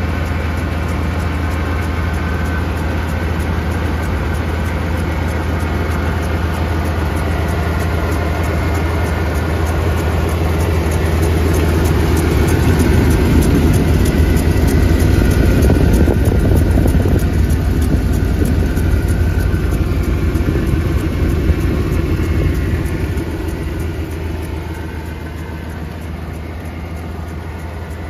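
Dodge Ram 2500 van's Magnum V8 idling steadily, heard close up at the open engine bay. It gets louder in the middle and eases off near the end.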